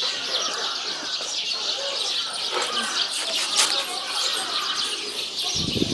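Many small birds chirping together in a steady high chatter. A louder rustling noise comes in near the end.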